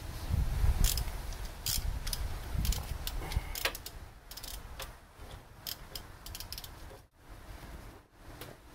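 Ratchet wrench clicking in short, irregular bursts while working on the brake caliper bracket bolts, with low rumbling through the first three seconds.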